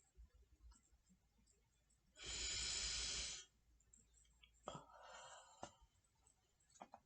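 A person doing pursed-lip breathing: one loud, breathy blow of about a second about two seconds in, then a fainter breath about five seconds in, with a few faint clicks.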